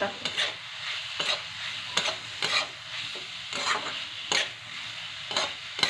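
Onion-tomato masala sizzling in a metal kadhai while a spatula stirs it, scraping against the pan in repeated strokes roughly every half second over a steady frying hiss.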